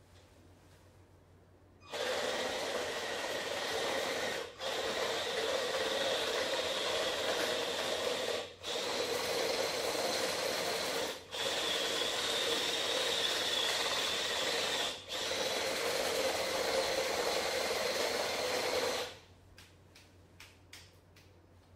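Home-built RC tank running on its two 12 V 555 reduction gear motors, its motorcycle-chain tracks whirring and clattering under the weight of a rider. It starts about two seconds in, cuts out briefly four times as the throttle is let off, and stops near the end.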